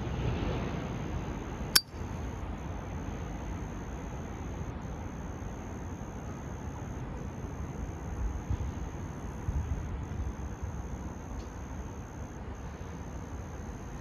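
Zippo windproof lighter's lid snapping shut with a single sharp metallic click about two seconds in, over steady low background noise.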